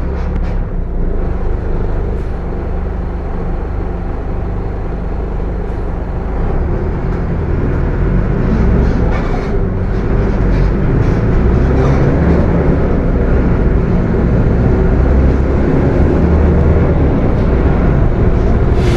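Mercedes-Benz OF 1721 bus running, its engine and a loudly growling transmission heard together. The sound gets gradually louder about halfway through.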